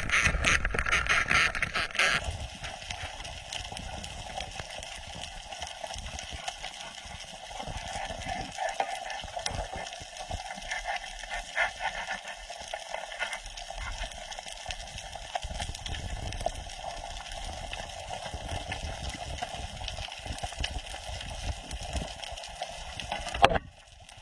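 Steady rushing water noise with faint crackling, louder and choppier for the first two seconds, then cutting off suddenly near the end.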